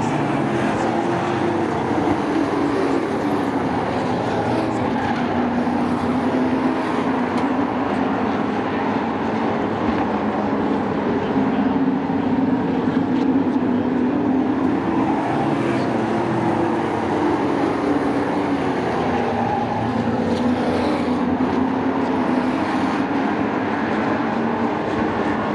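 A pack of sport-class race trucks running laps together, with several engines at once whose pitch rises and falls as they go around.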